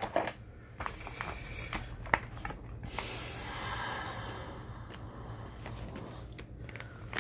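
Clear plastic bag crinkling and rustling around a folding knife as it is lifted out of its foam-lined box and handled, with scattered small clicks and one sharper click about two seconds in.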